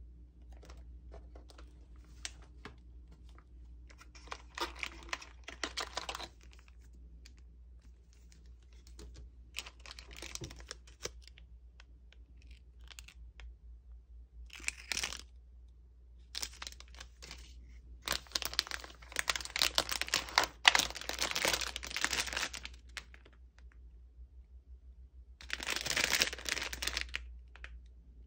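Ramen box packaging being opened and handled: repeated bursts of cardboard tearing and rustling, with plastic sachets and a plastic-wrapped bag of noodles crinkling, the longest and loudest burst past the middle. A low steady hum lies underneath.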